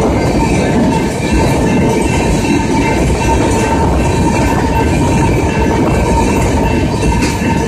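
Freight train tank cars rolling past at close range: a loud, steady rumble of steel wheels on the rails, with a steady high tone running through it.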